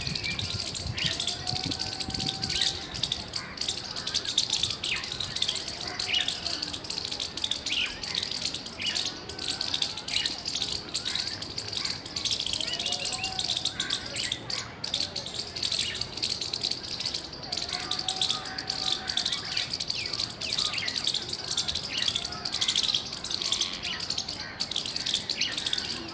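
Squirrel chirping loudly and continuously: a rapid string of short, sharp, high chirps, with a few lower, arching calls now and then.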